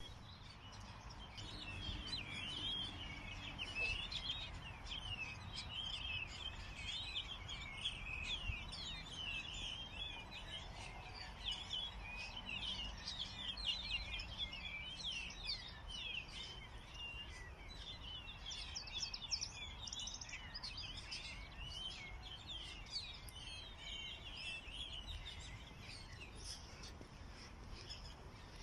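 Many small birds singing and chirping together in a continuous dense chorus of short, quick, high notes, over a low background rumble.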